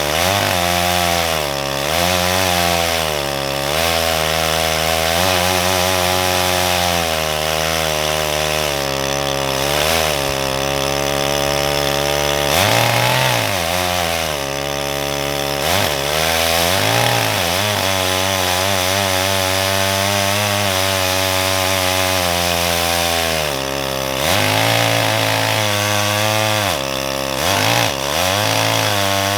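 Farmertec G888 (Stihl MS880 clone) two-stroke chainsaw with a six-foot bar, run at wide-open throttle in a chainsaw mill to break in the new saw. The engine pitch repeatedly sags and recovers as it loads up in the cut.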